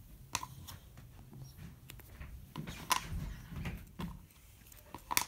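Hands rustling and tugging at a plush toy's fabric while picking open its seam stitching, with three sharp clicks spread through and a few soft low thumps in the middle.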